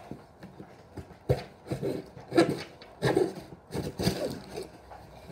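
Short, irregular scrapes and crinkles of a cardboard box and its packaging being handled and worked open by hand.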